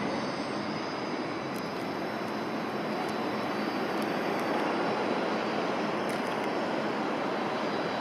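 Shinkansen bullet train departing the platform: a steady rushing rumble of the train running out of the station, growing slightly louder partway through.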